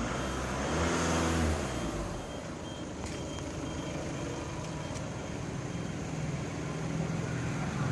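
A motor vehicle engine running, its pitch dropping over the first two seconds and then holding a steady low hum. A faint short high beep repeats two or three times a second for a few seconds in the middle.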